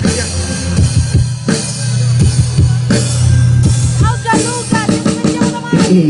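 Live band playing a hip-hop song through a PA, an instrumental stretch with drum kit and a steady bass line.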